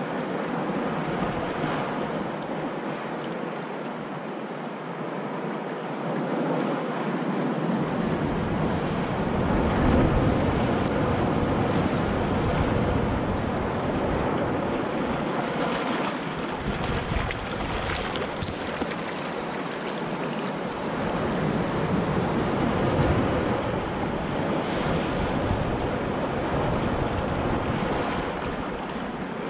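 Ocean surf breaking on rocks and washing up the sand in slow surges, with a low wind rumble on the microphone from about a quarter of the way in.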